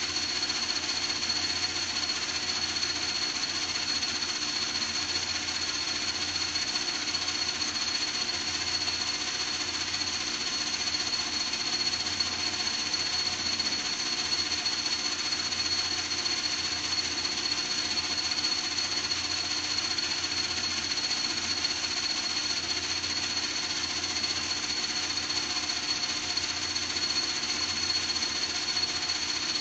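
A machine running steadily without a break: a rapid mechanical rattle with a constant high-pitched whine and a lower hum.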